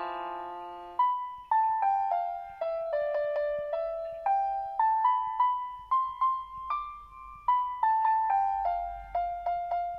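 Background music: a slow melody on a piano-like keyboard, single notes each struck and fading at about two a second, after a held chord that ends about a second in.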